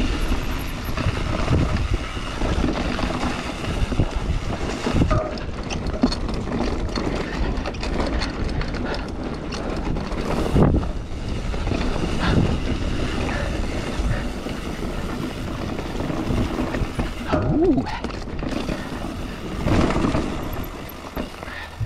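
Mountain bike riding down a trail: wind rushes over the microphone, with frequent knocks and rattles as the bike runs over bumps.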